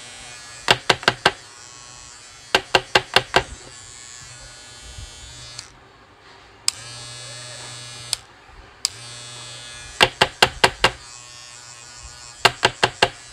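Cordless hair trimmer motor and blade running with a steady buzzing hum, tested after its loose battery connections were resoldered. It stops twice for about a second and starts again, with a switch click each time. Groups of four or five quick, sharp knocks come four times over the hum, the loudest sounds.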